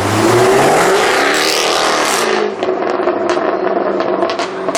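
Jaguar F-Type R's supercharged V8 revving hard and accelerating for about two seconds, rising in pitch, then easing to a steadier drone.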